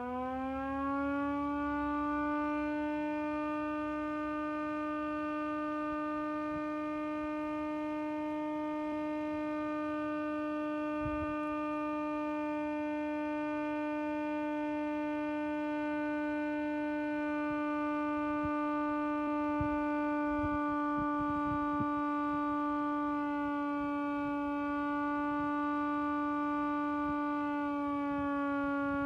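Vixen Horn electric motor-driven siren holding one steady tone after spinning up, its pitch dipping slightly near the end. The motor, with worn brushes, is burning up as it runs.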